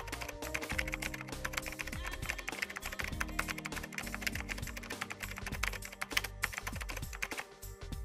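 Rapid computer-keyboard typing clicks, a sound effect laid over background music with held notes; the typing stops shortly before the end.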